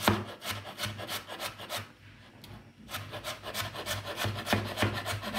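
Kitchen knife rapidly chopping finely diced raw potato on a wooden cutting board: a quick run of sharp knocks, several a second, with a short lull about two seconds in before the chopping resumes.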